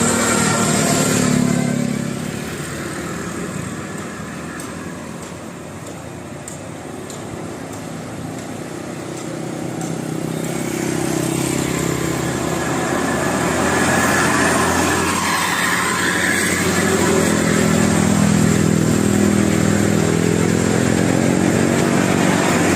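Road traffic: a vehicle's engine is loud at first and falls away after about a second and a half. Another engine, with a steady low hum, then grows louder through the second half as it approaches and stays loud to the end.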